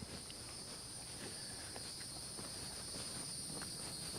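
Steady, high-pitched chorus of insects buzzing in two even bands, with faint footsteps on the trail about twice a second.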